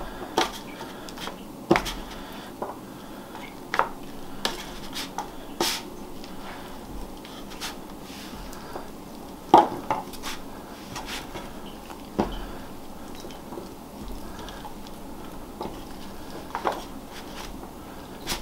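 Scattered soft taps, knocks and crinkles as hands pick up pieces of apple-filled dough and drop them into a disposable aluminium foil loaf pan. There are a dozen or so separate knocks, the sharpest about two seconds in and about halfway through.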